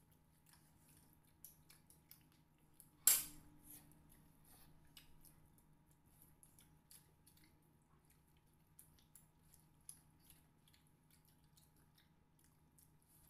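Quiet eating at a table: scattered small clicks and taps of fingers and a spoon on plates, with soft chewing. One sharper clink of a spoon against a plate comes about three seconds in.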